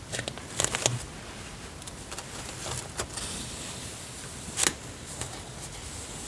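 Soft paper rustling and light clicks as a paper planner page is handled, with one sharper crackle about four and a half seconds in.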